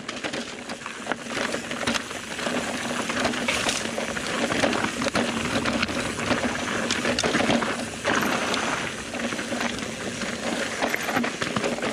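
Mountain bike riding fast down a loose, rocky trail: the tyres crunch and skid over gravel and stones, and there are many small knocks and rattles from the bike.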